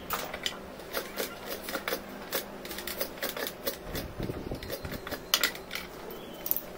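Spokeshave shaving a wooden knife handle clamped in a vise: a run of short, irregular scraping strokes, about two or three a second, rounding and smoothing the curve. A few handling knocks come around the middle, and a sharp click a little after five seconds.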